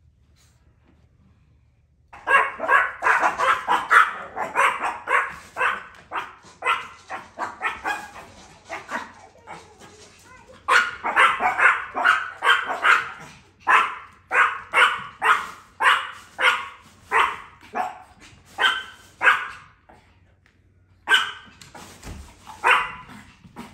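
Long-haired Chihuahuas barking rapidly in sharp, high-pitched yaps, territorial barking at a delivery driver outside the window. The barking starts about two seconds in and comes in three long runs with brief breaks between them.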